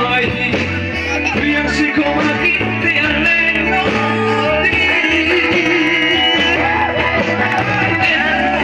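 A man singing into a microphone over amplified backing music with a moving bass line.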